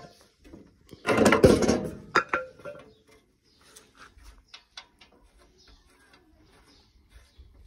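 Metal clanking and rattling of a wrench on the steel plunger assembly of a hay baler as its bolts are loosened: a dense run of metal knocks about a second in, lasting a second or so, then scattered light ticks.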